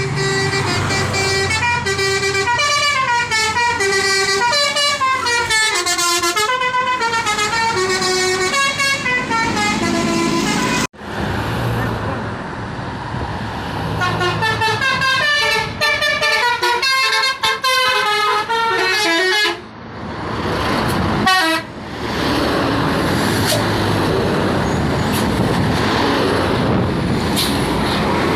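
A bus's multi-tone 'basuri' telolet horn playing a long tune of quick stepping notes, cutting off suddenly about eleven seconds in, then starting another tune a few seconds later. In the last several seconds the horn stops and only road and engine noise remains.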